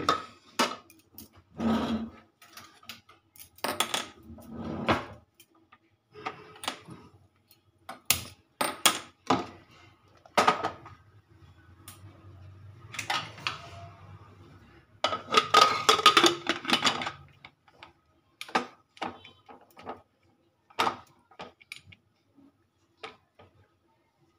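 Aluminium pressure cooker being handled on a stovetop and its lid fitted and locked: scattered metal clinks, knocks and scrapes, with a louder run of clattering about two-thirds of the way through.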